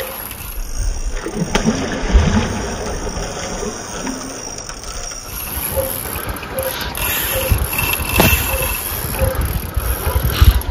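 Fight with a hooked wels catfish on a heavily bent rod: water splashing and rod-handling noise with low thumps. In the second half a faint short pip repeats about every two-thirds of a second.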